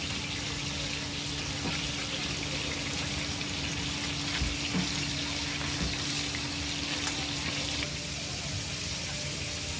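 Tteokgalbi patties (minced short-rib patties) sizzling steadily in fat on a large flat-top griddle, with a few light knocks around the middle.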